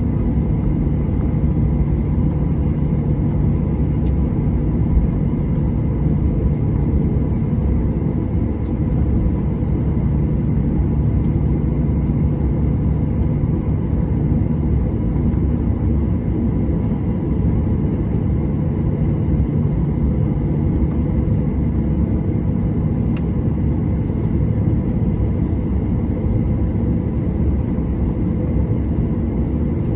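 Boeing 737-800's CFM56-7B turbofan engines running at taxi power, heard from inside the cabin as a steady low rumble with a faint high whine.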